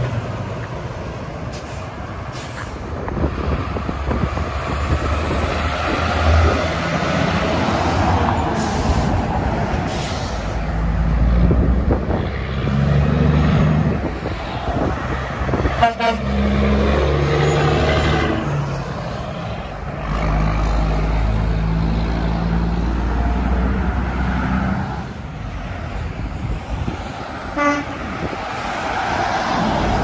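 Heavy diesel trucks passing one after another, their engines pulling through the gears and swelling and fading as they go by, with a truck horn sounding.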